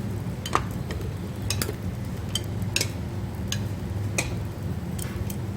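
Eating utensils clicking against dishes at a table, about ten light clicks at uneven intervals, over a steady low hum.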